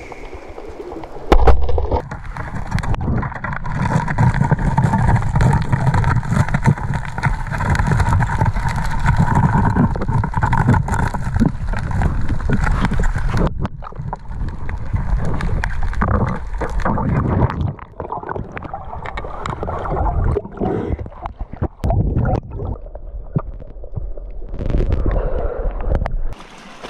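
Underwater gurgling and churning with many knocks and clicks as a speared coral trout thrashes and is grabbed on the coral, opening with a sudden loud thump about a second in.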